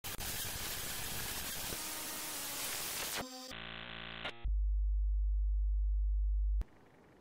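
Television static hiss for about three seconds, then a brief buzzing, stuttering test-tone glitch, then a loud, deep, steady drone for about two seconds that cuts off suddenly, leaving only faint background.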